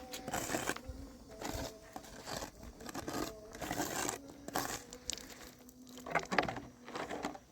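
Irregular rustling and crinkling with scattered sharp clicks and knocks, like material being handled, over a faint steady tone in the background.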